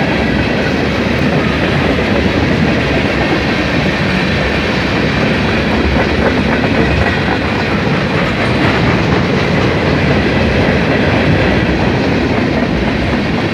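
Norfolk Southern freight train rolling past, its wheels on the rails making a steady, loud rumble.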